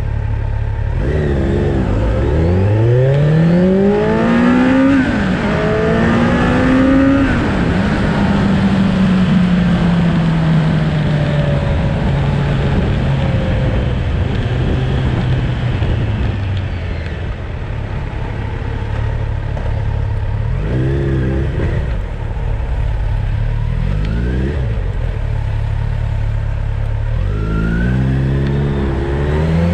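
Motorcycle engine accelerating through the gears, its pitch rising twice with a gear change between. It then falls slowly for several seconds as the bike slows. In the second half come three short bursts of throttle.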